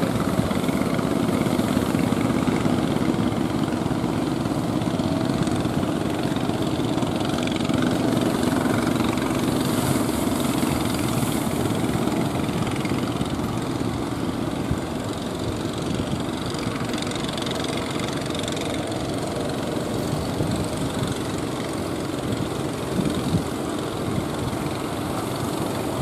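Engine of a wooden fishing boat running steadily, mixed with the wash of surf and wind.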